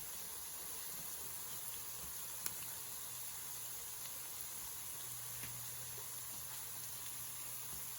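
Mashed potato fries frying in hot oil: a steady, even sizzle with a few faint crackles and one sharper pop about two and a half seconds in.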